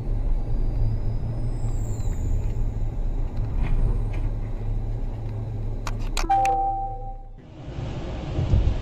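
Steady low rumble of a car's engine and road noise, heard from a dashcam inside the cabin. About six seconds in come a few sharp knocks, then a steady pitched tone held for about a second. Near the end the sound changes to a steadier hiss with rumble.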